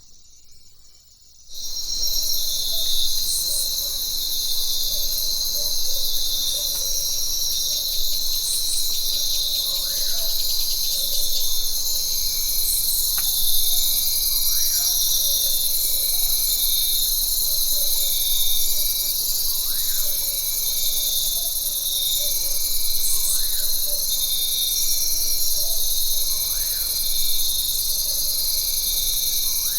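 Jungle ambience: a dense, steady chorus of high-pitched insects, with a short call repeating every second or so and a rising-and-falling call every few seconds. The chorus comes up to full level about a second and a half in.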